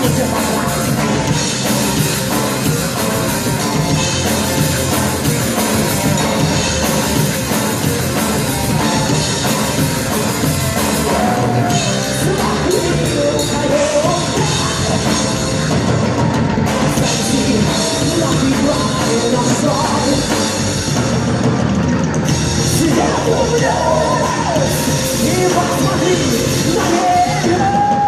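A live heavy rock band playing loudly: distorted electric guitars and a drum kit, without a break.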